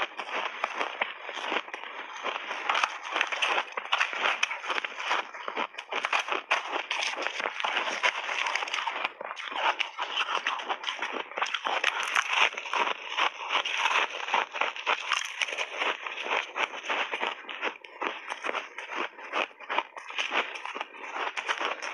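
Close-miked chewing of ice chunks layered with milk powder: dense, rapid crackling crunches as the ice shatters between the teeth, going on without a break.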